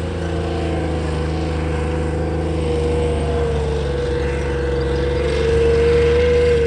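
Tank driving past, its engine running with a steady low drone and a whine that wavers in pitch and grows louder about five seconds in.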